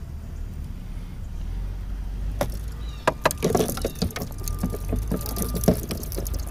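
Fishing rod rattling in a PVC rod holder as it is handled: a single click about two and a half seconds in, then a cluster of clicks and knocks lasting about three seconds. A steady low hum runs underneath.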